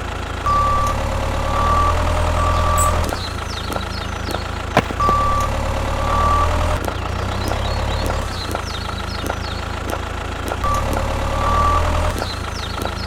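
A small motor running in three spells, each time with a short electronic beep repeating about once a second, like a reversing alarm. A steady ticking and chirping background runs underneath, with one sharp click midway.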